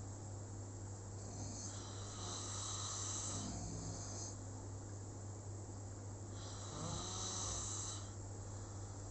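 Snoring: two long snoring breaths about five seconds apart, the first about a second and a half in, the second past the middle, over a steady low hum.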